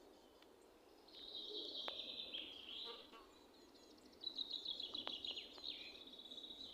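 Songbirds singing in a forest: rapid, high trills, the first starting about a second in and a second starting about four seconds in.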